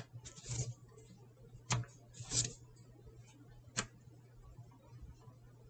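Tarot cards being drawn from the deck and laid down on a cloth-covered table: a handful of short, sharp card clicks and snaps, one of them a slightly longer slide, over a steady low hum.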